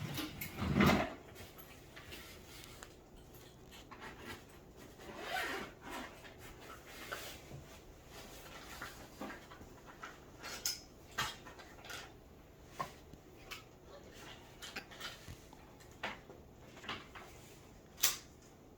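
Woodpecker pecking at wood: scattered, irregular sharp taps with no steady rhythm, plus a dull thump about a second in.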